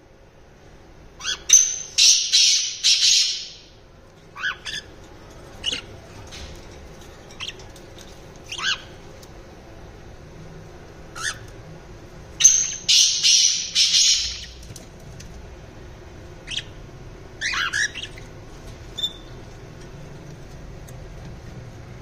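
Caged pet parrots (budgerigars, a cockatiel and an Indian ringneck parakeet) calling: two loud, harsh screeches of about two seconds each, a second or so in and again about halfway, with short chirps scattered between.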